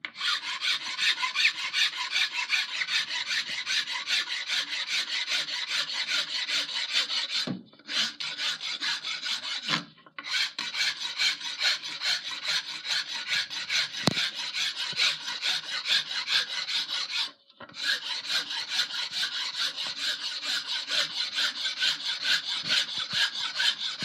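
A hand file rasping in quick back-and-forth strokes across the end of a wooden tomahawk handle, pausing briefly three times. The file is taking down the pencil-marked high spots so the handle fits the inside of the head.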